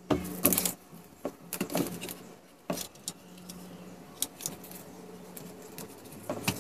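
Clicks and light rattling of a coin-slot unit and its loose wires being picked up and turned over in the hands. The clatter is busiest in the first second. A faint steady low hum runs underneath.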